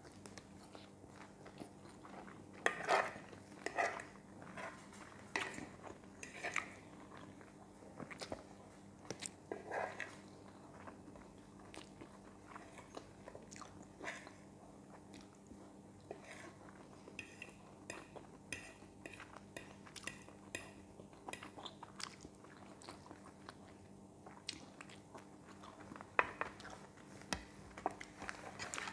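A person chewing and biting mouthfuls of stir-fried pancit canton noodles, with scattered short clicks of a fork against a plate, over a faint steady hum.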